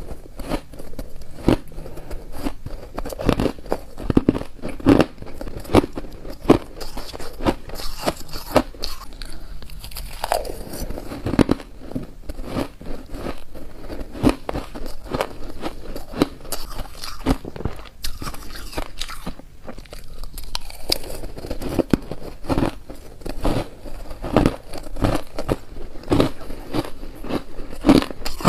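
Shaved ice being bitten and chewed by mouthfuls: a dense, irregular run of sharp, crisp crunches with short pauses between bites.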